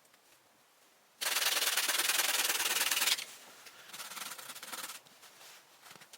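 Loud, rough scraping or rubbing for about two seconds, then quieter, uneven scraping for about two more seconds.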